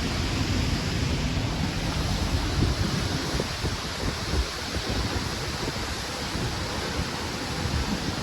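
Steady rushing of a large waterfall, with wind buffeting the microphone.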